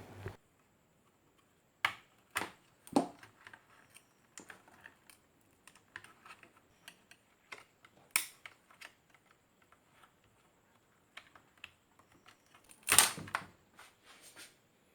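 Scattered light clicks and taps of hand tools working on a circuit board while an old electrolytic capacitor is taken out. A short, louder scraping rustle comes near the end.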